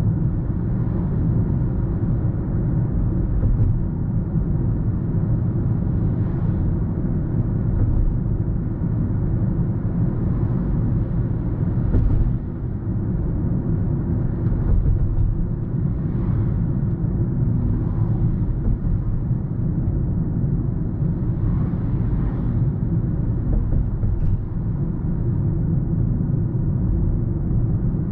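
2022 Toyota Prius AWD-e driving on the road: a steady low rumble of tyre and road noise.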